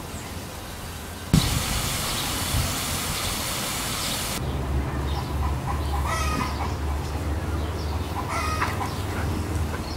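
Water hissing from a garden-hose bottle sprinkler, starting suddenly about a second in and cutting off abruptly a few seconds later. After that comes a steady low hum, with short high-pitched calls repeating every couple of seconds.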